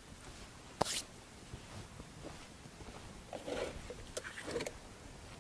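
Faint scattered handling noises: a click and a short rasp about a second in, then soft rustles and small clicks between about three and four and a half seconds.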